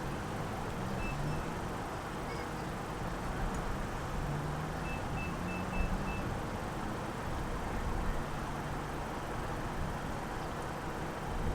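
Steady car running noise with short high electronic beeps: two about a second in, then five in a quick row about five seconds in.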